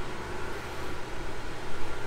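Steady hum and hiss of constant background noise, with no distinct clicks or knocks.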